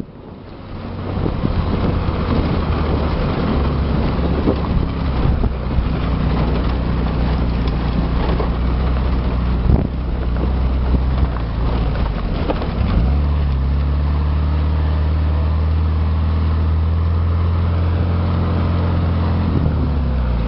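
Off-road vehicle's engine running steadily, with scattered knocks. About thirteen seconds in, the engine note drops a little and gets louder.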